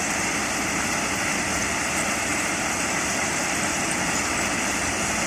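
Railway machine working, its engine running with a steady, unchanging noise.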